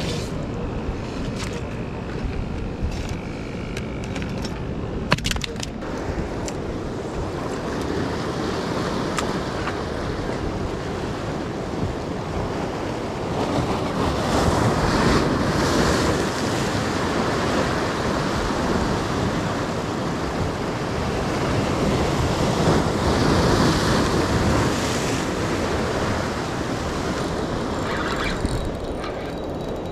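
Ocean surf breaking and washing against jetty rocks, with wind on the microphone. The wash swells louder twice, about halfway through and again some seconds later. A few light knocks come in the first few seconds.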